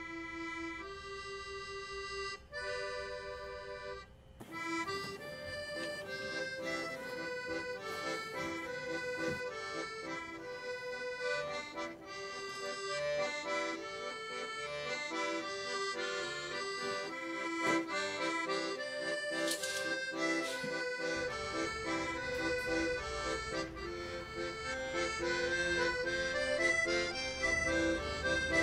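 Instrumental background music: a few held notes at first, then a fuller, busier melody from about four seconds in.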